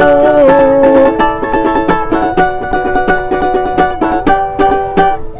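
A busker's sung note, held with vibrato, ends about a second in. Then his strummed string accompaniment carries on alone, playing regular chords between the sung lines.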